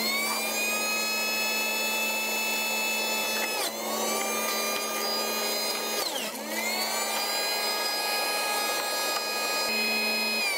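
Electric juicer motor running as beet is juiced: a steady whine that sags in pitch twice under load and recovers, then winds down at the very end as it is switched off.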